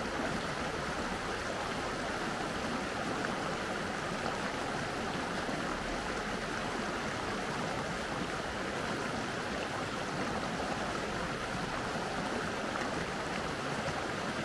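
Mountain stream flowing with a steady, even rush of water.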